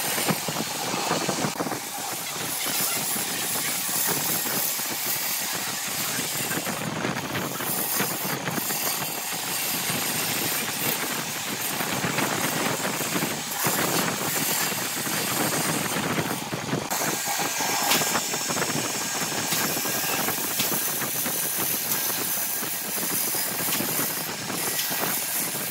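Wood lathe running while a hand-held gouge cuts into a spinning grapefruit-wood vase, a steady rough hiss of shavings coming off the wood.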